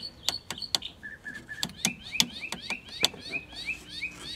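Scattered sharp clicks and crackles as the Magnavox console stereo's selector knob is worked, over a bird chirping a quick run of short rising notes, several a second. A faint steady low hum comes in near the end.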